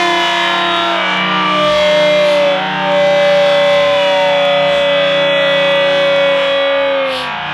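Arena goal celebration over the PA: a held siren-like goal horn with a distorted electric-guitar goal song. The horn's tones sag in pitch and stop about seven seconds in.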